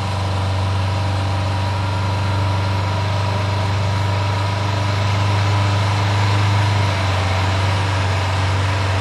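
Large diesel engine running steadily with a deep, even hum and no revving.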